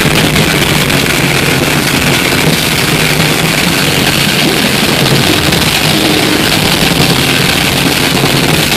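Death metal band playing live, with distorted electric guitars, bass and drums, picked up by an overloaded microphone so that it blurs into a dense, even wall of noise.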